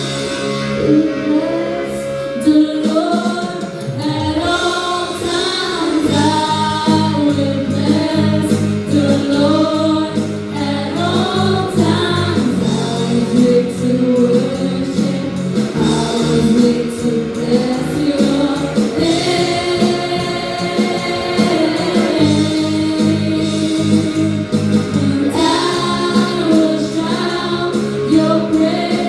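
Junior praise team singing a contemporary gospel worship song together over band accompaniment with a steady beat; the bass and beat drop out briefly about four seconds in, then return.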